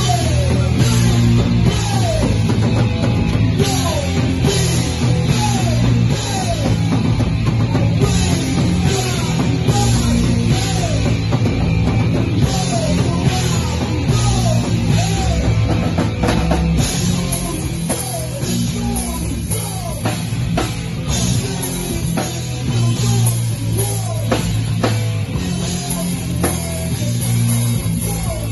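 Punk rock band playing live and loud: distorted electric guitar, bass and a drum kit driving a fast, steady beat.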